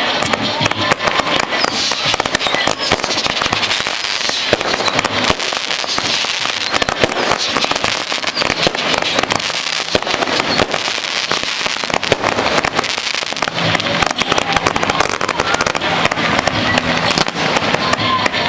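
Fireworks display going off in a dense, unbroken run of sharp bangs and pops.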